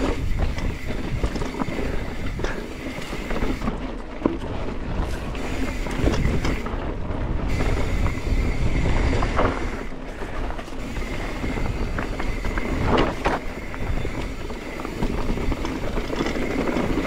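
Mountain bike riding down a rocky dirt singletrack: tyres rolling over dirt and stones, and the bike rattling with sharp knocks over the rocks. Wind rushes steadily over the microphone.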